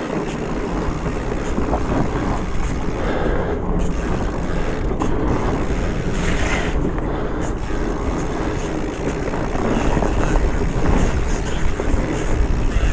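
Steady riding noise on a muddy trail: wind buffeting the camera microphone as a low rumble, with tyre and rattle noise underneath.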